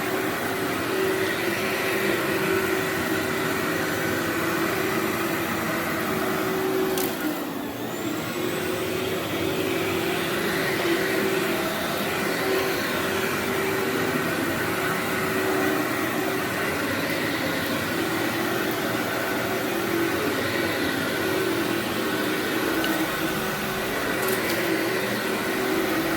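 Workhorse vacuum cleaner running steadily as it is pushed over berber carpet full of dog hair: a continuous motor hum with a steady tone, dipping briefly about seven seconds in.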